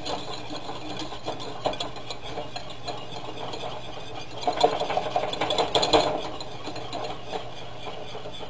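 A utensil stirring thick gravy in a stainless steel saucepan, scraping and clicking against the pot in quick, uneven strokes, louder for a couple of seconds a little past the middle. A low steady hum runs underneath.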